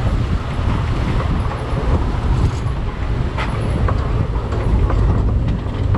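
Open-sided safari truck driving over a wet, rutted dirt road: a steady low engine and road rumble, with a few scattered knocks and rattles from the truck body.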